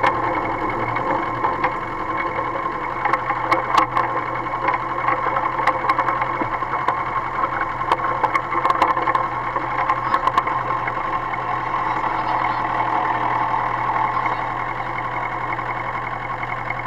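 Engine of a small Lister rail tractor running steadily as it travels along narrow-gauge track, with scattered sharp clicks and rattles through the middle of the run.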